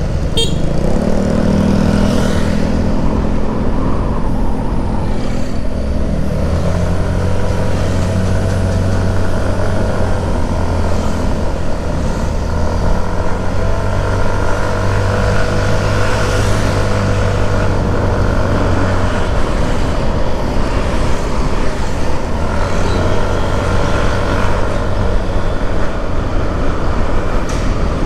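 Engine of a moving road vehicle running under way over a steady rush of road noise, its pitch drifting gently up and down as speed changes.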